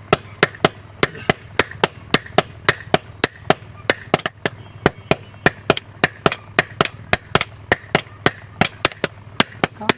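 Blacksmith's hammer striking metal on an anvil in a fast, steady rhythm, about four blows a second, each blow leaving a short high ring.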